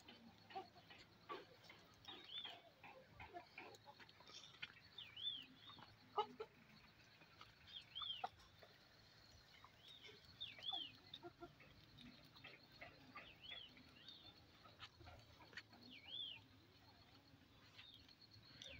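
Quiet outdoor ambience with a bird faintly repeating a short rising-and-falling chirp every two to three seconds, with a few faint ticks between.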